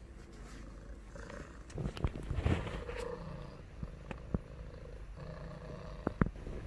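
Domestic cat purring close to the microphone, with a few soft knocks and rustles of handling about two seconds in and again near the end.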